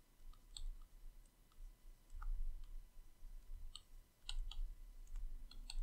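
Faint, irregular light clicks and taps of a stylus on a drawing tablet during handwriting.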